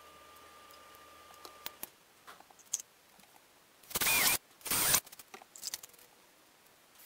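Two short bursts of hissing noise, each about half a second long, around four and five seconds in, among scattered small clicks and taps.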